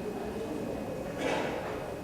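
Indistinct murmur of voices in a hall, with a short hissing noise just over a second in; no music is playing yet.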